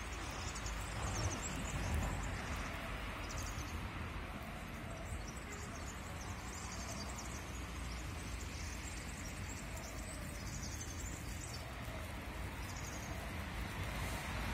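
Outdoor ambience: small birds chirping again and again over a steady low rumble.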